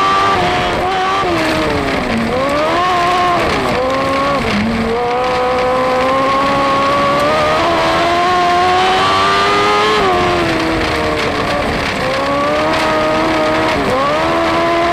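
Onboard sound of a dwarf car's motorcycle engine running hard at racing speed. Its revs dip and climb again several times as it goes through the turns.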